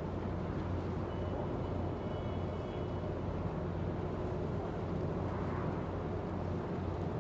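Steady low machinery drone, with a faint thin high whine for a couple of seconds about a second in.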